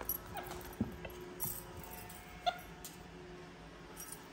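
Capuchin monkey giving a few short, soft squeaks that drop in pitch, spread over several seconds, with faint clicks in between.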